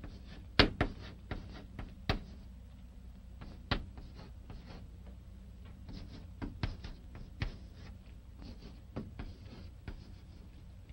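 Chalk writing on a blackboard: irregular sharp taps and short scratches as letters are chalked, over a faint steady low hum.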